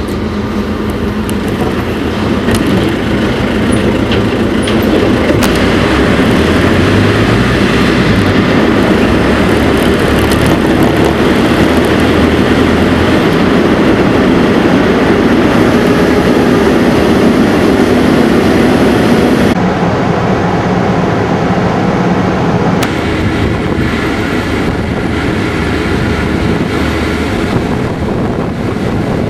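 Steady engine and road noise from inside a VW bus's cab as it drives, changing abruptly about two-thirds of the way through.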